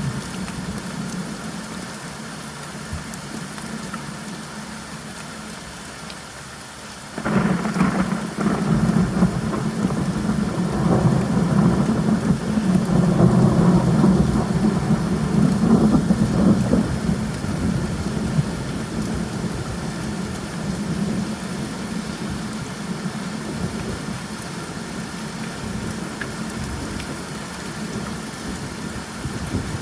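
Steady rainfall with a thunderclap that breaks in suddenly about seven seconds in and rumbles on, loudest a few seconds later, then slowly fades back under the rain.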